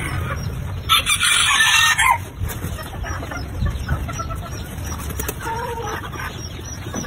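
A rooster crows once, a harsh call of about a second starting about a second in, followed near the end by a few soft, short clucks over a steady low rumble.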